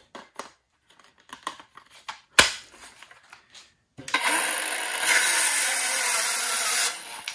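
Milwaukee M12 Fuel 5-3/8-inch cordless circular saw, running on a small 2 Ah battery, crosscutting a 2x4. It starts about four seconds in and cuts for about three seconds, then stops. Before it come light handling clicks and one sharp click about two and a half seconds in.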